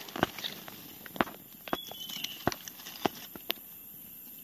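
Footsteps on dry forest-floor leaf litter and twigs: a handful of irregular sharp crackles and snaps.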